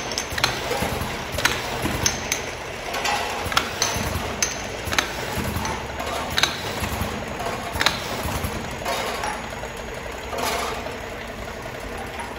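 Automatic round-bottle labeling machine running: a steady mechanical hum from the conveyor and label head, with irregular sharp clicks and clinks as glass jars pass through.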